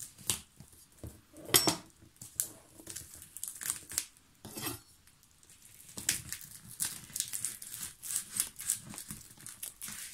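A knife slitting and scraping through the packing tape of a heavily taped parcel, with the tape crinkling and tearing in short, irregular strokes.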